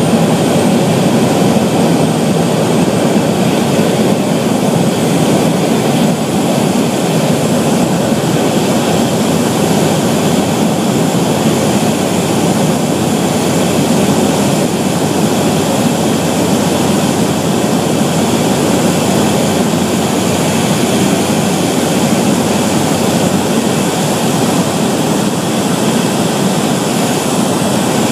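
Cabin noise of a Cessna 208 Caravan in flight: its single Pratt & Whitney PT6A turboprop engine and propeller make a steady, loud drone. A faint high whine sits above it.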